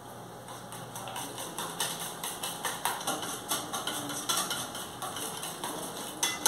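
Wire whisk beating eggs and softened margarine in a stainless steel bowl, its wires tapping and clinking against the metal several times a second, growing louder about a second and a half in.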